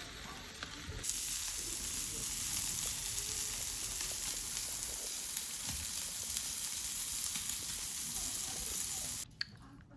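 Food sizzling and crackling in a hot pan or on a grill, a steady frying hiss. It starts about a second in and cuts off abruptly near the end.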